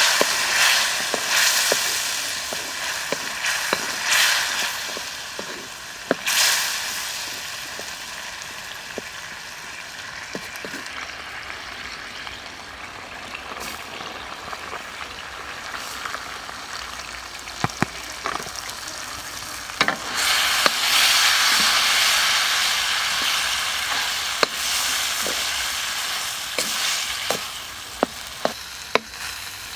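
Food sizzling over a campfire: a steady hiss that swells and fades, louder for a few seconds about two-thirds of the way through, with sharp crackles and pops throughout.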